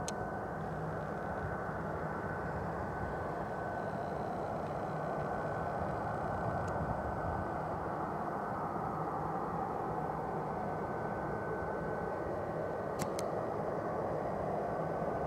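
Distant Boeing 737-200's Pratt & Whitney JT8D turbofan engines running at taxi power: a steady rumble with a thin, steady high whine. Two sharp clicks come near the end.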